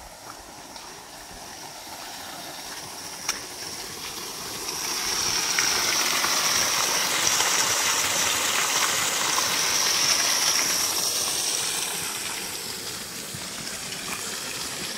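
Water gushing out of a burst dam overflow pipe: a steady rush that swells about five seconds in and eases off again near the end.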